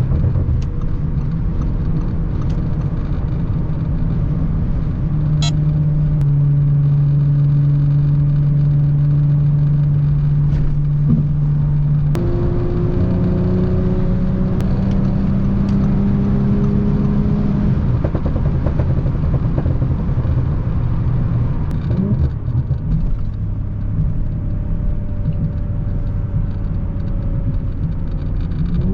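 Tuned Audi S4 (B9) 3.0-litre turbocharged V6 running while driven, over steady road noise. Its note holds steady for stretches, steps in pitch a few times, climbs slowly from about twelve seconds in and falls away around eighteen seconds.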